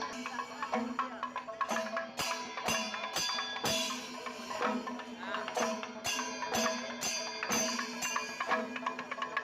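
Instrumental music with percussion: regular struck notes about twice a second over a steady low held note.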